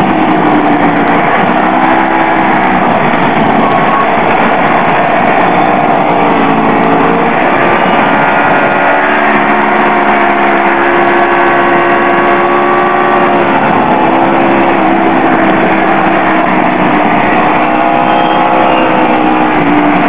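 Onboard sound of a sport motorcycle lapping a race track: the engine runs hard, its pitch drifting up and down with throttle through the corners, under a steady rush of wind.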